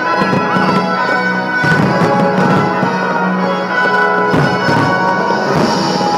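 Orchestral show music playing loudly and steadily with a fireworks display, broken by several sharp firework bangs.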